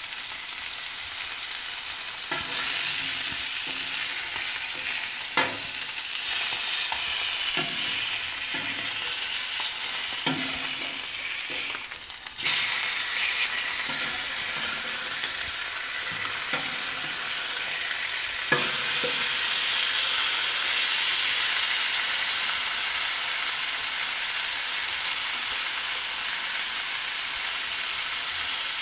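Pork chops sizzling in hot fat on a flat griddle plate, a steady hiss of frying meat. Several short knocks and scrapes of a metal spatula on the griddle are heard as the chops are turned over.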